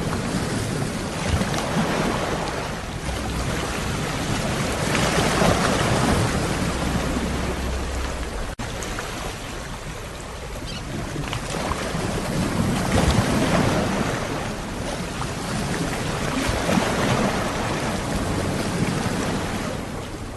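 Sea waves washing onto the shore, the surf swelling and fading in slow surges every few seconds. There is a momentary cut in the sound about eight and a half seconds in.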